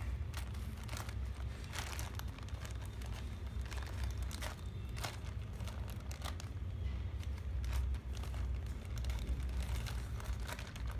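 Plastic courier mailer bag crinkling as it is handled and snipped open with scissors: scattered sharp crinkles and snips, over a steady low hum.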